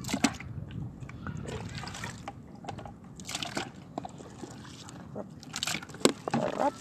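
Wet seafood catch being handled in a plastic bucket and a cooler: water sloshing and dripping, with scattered light clicks and knocks.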